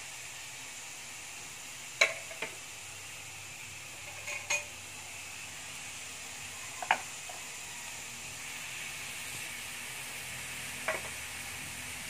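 Bitter gourd sizzling steadily in a nonstick frying pan, with a spatula knocking against the pan about five times as the vegetables are stirred; the loudest knocks come about two and seven seconds in.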